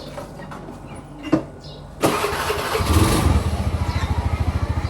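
An engine starts about two seconds in and settles into a steady idle with a rapid, even pulse.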